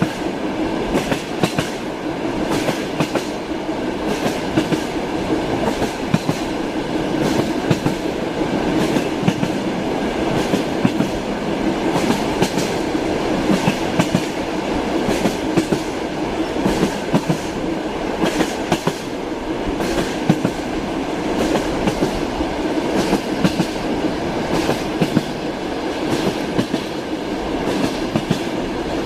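Train running steadily, its wheels clacking rhythmically over the rail joints over a continuous rolling rumble.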